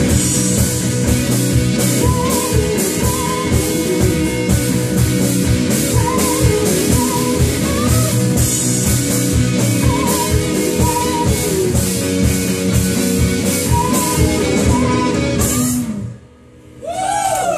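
Live rock band playing: electric guitars, bass guitar and drum kit, with a guitar phrase coming round about every two seconds. The band stops together about sixteen seconds in, and after a brief lull a short sound that bends in pitch comes in near the end.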